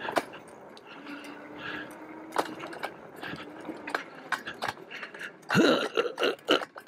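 Engwe Engine Pro fat-tyre e-bike ridden over a rough root-strewn trail: a faint steady whine from its hub motor, with scattered sharp knocks and rattles as the bike jolts over roots. Louder, busier noise comes near the end.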